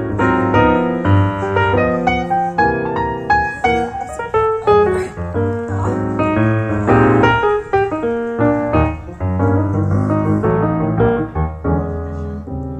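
Background music: a keyboard, piano-like, playing a quick melody of many short notes over a steady bass line.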